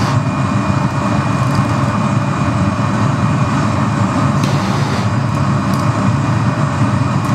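Steady roar of gas burners: a hand torch flame heating strips of glass cane, with the studio's glass furnace and glory hole running. A couple of faint clicks from metal tools on the plate come about halfway through.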